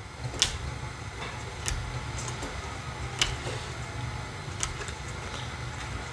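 Topps baseball cards being flipped through one at a time in the hand, the glossy card stock giving a sharp snap about every second and a half, four times, over a low handling rumble.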